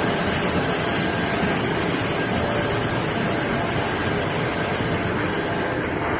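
Full-automatic cardboard laminating machine running steadily: an even mechanical noise with a faint steady hum.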